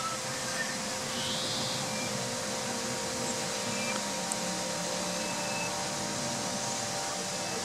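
A steady rushing noise, with a few faint long-held ringing tones and some short faint high chirps over it.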